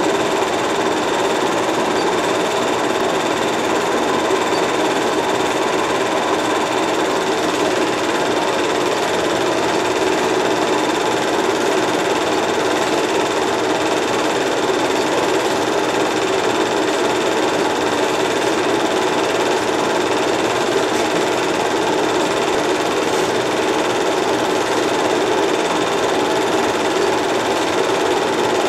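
8mm movie projector running: a steady mechanical whirring clatter with a thin high whine, unchanging from start to finish.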